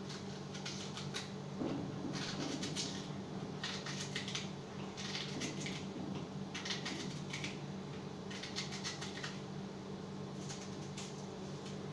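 Hand food preparation at a kitchen counter with a knife: about six short spells of rustling and scraping, roughly one every second and a half. A steady low hum runs underneath.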